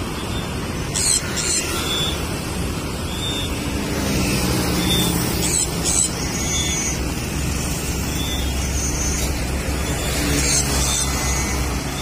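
Road traffic on an elevated highway: cars and motorcycles passing with a steady low rumble and tyre noise, swelling about a third of the way in as motorcycles go by and again towards the end.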